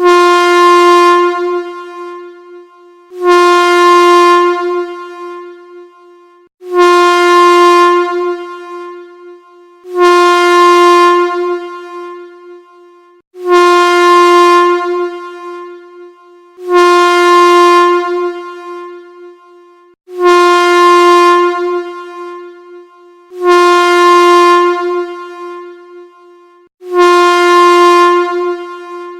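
Train whistle sounding in repeated blasts, about one every three and a half seconds. Each blast is a single steady note that dies away over a second or two.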